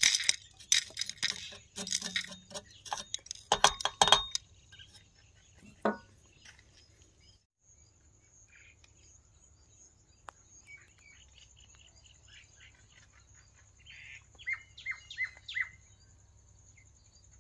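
Metal parts of a meat grinder clinking and clattering as it is taken apart, during the first few seconds. Near the end a bird chirps a short run of notes over a faint, steady high whine.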